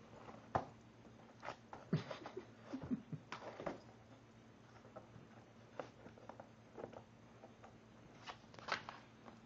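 A Care-tzu (Cairn terrier–Shih Tzu cross) biting and tearing at a cardboard box, giving faint, irregular crackles and rips of cardboard with quiet gaps between them.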